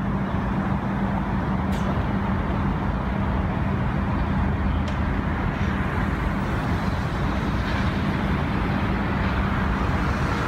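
Steady road traffic noise with a constant low engine hum.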